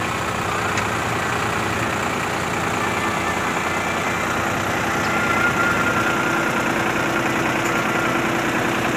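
Diesel engines of a JCB backhoe loader and a farm tractor running steadily beside a loaded trailer bogged in mud, with a thin high whine for a second or two about five seconds in.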